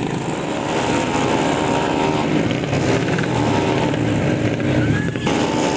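Racing scooter engines (tuned 131cc automatic-transmission motorbikes) running hard on a race track, several at once, their pitch rising and falling as they pass.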